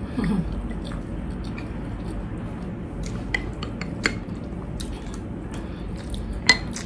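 A white soup spoon clicks and scrapes against a container as thick mushroom gravy is scooped out, with a few sharp clicks, the loudest near the end.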